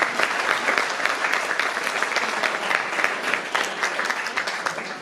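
Audience applauding: dense, steady clapping from many people that tapers off slightly toward the end.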